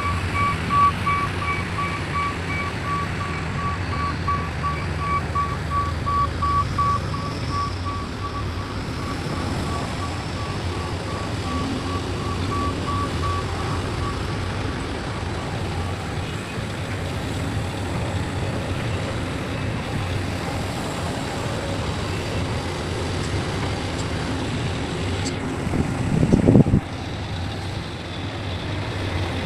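Heavy diesel machinery running steadily with a backup alarm beeping evenly over it for the first half before fading out. A short, loud surge of engine noise comes near the end.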